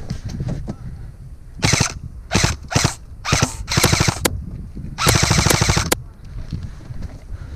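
Airsoft rifle firing on full auto: six short bursts of rapid shots over about four seconds, the last and longest lasting about a second.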